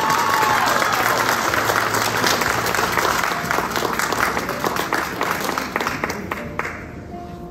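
Audience clapping and cheering, the applause dying away near the end.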